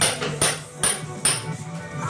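Hammer striking a steel chisel to chip plaster off a stone wall: four sharp blows, about two and a half a second, each with a short metallic ring, stopping after about a second and a half.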